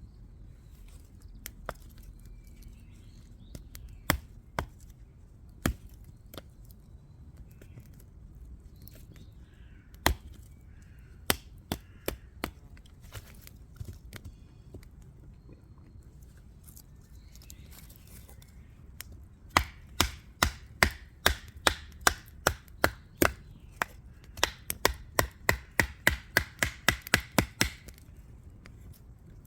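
Firewood being split or chopped: sharp wooden knocks, a few spaced seconds apart, then a fast run of about three knocks a second in the second half.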